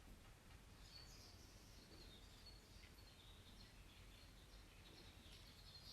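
Near silence: faint room tone with a low hum, and faint high chirping in the background from about a second in.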